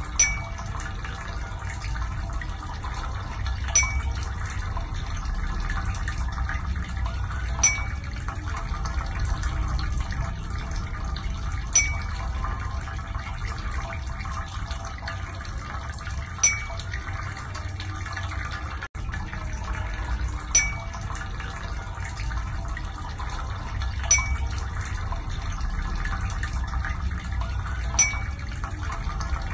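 Steady water-like trickle with a sharp, bright drip-like ping about every four seconds.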